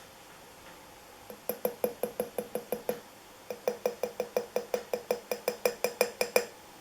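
Rapid, even tapping on the metal canopy of an SMC Laguna ceiling fan, about six or seven taps a second. Each tap gives a short metallic ring. The tapping comes in two runs with a brief pause between them, about a second and three seconds in.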